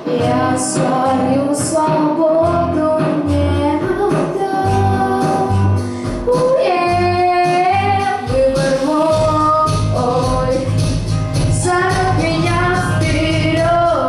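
A teenage girl singing a pop song into a handheld microphone over a backing track with bass and percussion, the melody moving in held and gliding notes.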